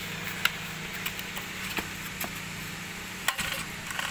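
A small engine idling steadily at low level, with a few sharp clicks and knocks of handling; the hum stops about three seconds in.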